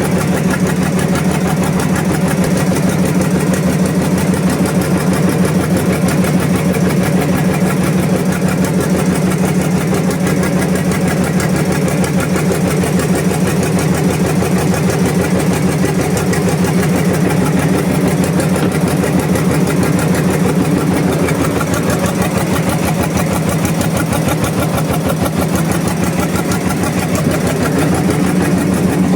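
Fishing boat's engine running steadily at an even idle-like speed, with a fast regular firing beat.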